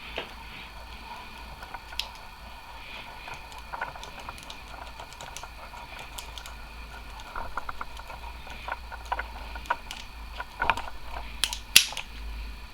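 Rake pick and tension wrench working the pin tumblers of a padlock: irregular light metal clicks and scrapes, a quick run of ticks about two thirds of the way through and the sharpest clicks near the end.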